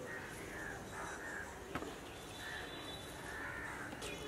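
Crows cawing repeatedly, short calls following one another every half second or so, with a single sharp click a little under two seconds in.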